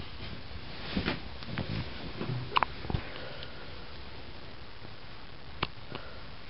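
Baby hiccupping: a run of short, sharp hics and breaths in the first half, one with a brief squeaky catch, then a single sharp hic near the end.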